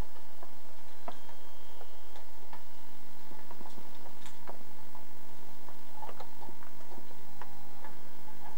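Empty plastic drink bottle being mouthed and pushed about by a puppy, giving irregular sharp clicks and crackles of thin plastic, over a steady low hum.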